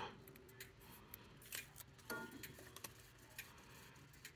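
Near silence, with a few faint, scattered clicks and taps.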